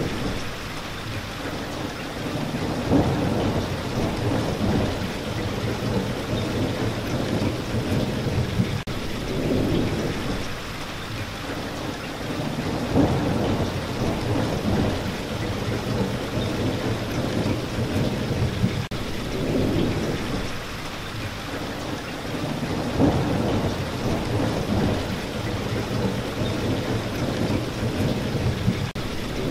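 Steady heavy rain with low rumbles of thunder that swell and fade every several seconds.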